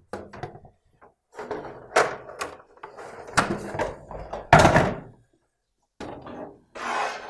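Plastic casing of a Daikin split air conditioner's indoor unit being handled and unclipped: a string of irregular knocks, clicks and rattles, the loudest about four and a half seconds in, then a brief pause and more rattling near the end.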